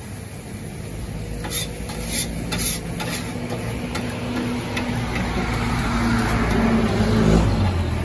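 Metal spatula and scraper clanking and scraping on a flat-top steel griddle as rice is stir-fried, over a sizzle that grows louder toward the end. A low engine hum runs underneath.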